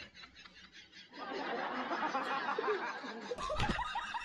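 A person snickering and laughing, starting about a second in and breaking into quick, repeated bursts of laughter near the end.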